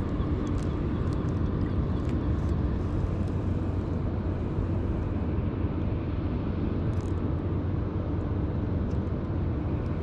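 Steady low rumble of distant machinery, with a faint constant hum under it.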